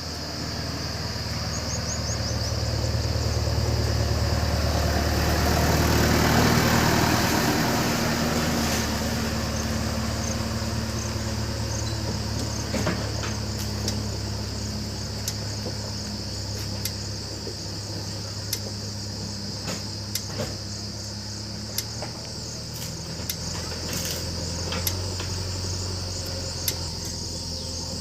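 JCB 3DX backhoe loader's diesel engine running while digging, swelling to its loudest about six seconds in and then settling back, with short knocks scattered through the second half. Insects chirp steadily throughout.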